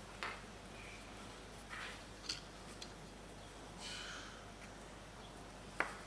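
Faint, scattered small clicks and scrapes of a screwdriver tip against a key fob's circuit board and coin-cell battery as the board is handled during desoldering, with a sharper click near the end.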